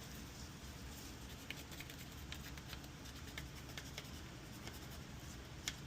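Faint scratching and light ticks of a circuit board being cleaned by hand, with one sharper tick near the end, over a low steady hum.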